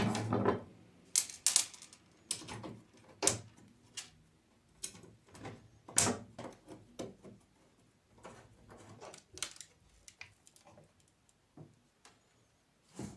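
Irregular clicks and knocks of parts and tools being handled and fitted together during machine assembly. A low motor hum dies away in the first couple of seconds.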